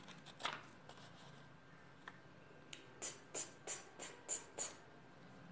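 A woman whispering the letter sound 't' over and over: six short, crisp 't' sounds, about three a second, starting about three seconds in, with one breathy sound about half a second in.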